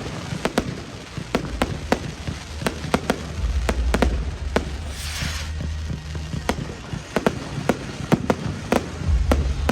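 Fireworks display: a rapid, irregular string of sharp bangs and cracks, a few a second, with a short whooshing burst about five seconds in.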